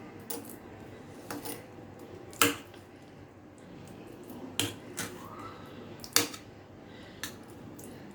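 Sharp clinks and taps of kitchen utensils against a dish, about seven spread over several seconds, the loudest about two and a half seconds in.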